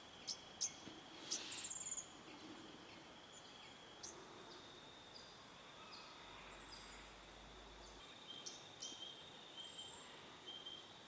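Faint bush ambience: a steady high insect drone, with scattered short, high bird chirps, a few of them sliding downward.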